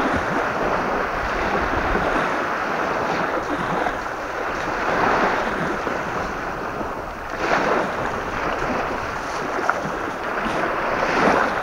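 Strong wind rushing over the microphone with small waves lapping, rising in gusts a few times.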